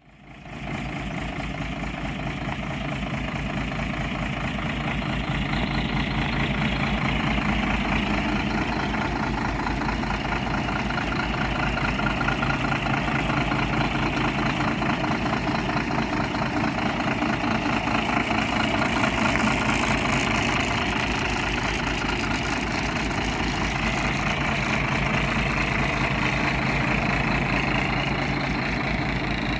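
Iveco Eurostar 440E43T tractor unit's diesel engine idling steadily.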